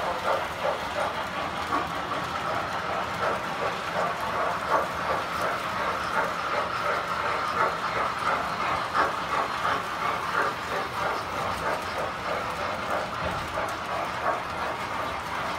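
Several Standard Gauge tinplate toy trains running at once: a steady metallic clatter of wheels rolling over three-rail track, full of small clicks, with no break.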